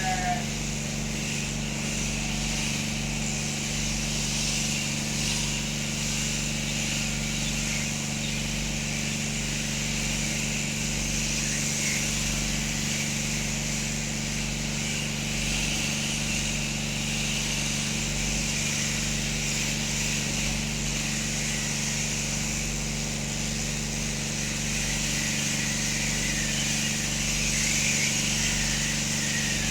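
A machine running steadily with a low hum and a high hiss, unchanging throughout. A sheep bleats briefly at the very start.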